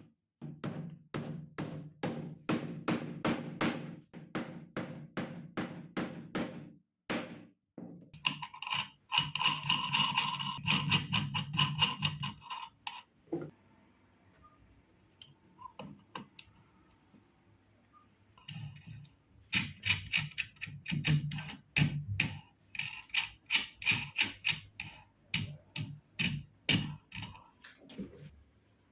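Rapid runs of sharp knocks on wood, four or five a second, in three bursts with a quiet stretch of a few seconds in the middle.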